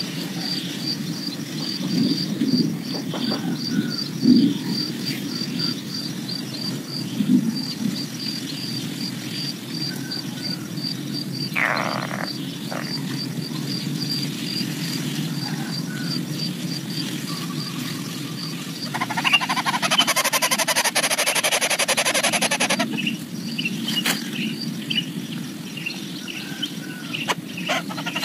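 Outdoor insect chirping in a steady train of short high pulses, about four a second, over a steady low background noise. About two-thirds of the way through, a loud noisy burst lasts about four seconds, followed by a few short high chirps.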